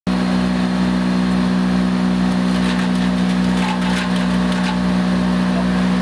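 Wood chipper's engine running steadily at speed, a loud constant hum, with a scattering of faint clicks and rattles in the middle.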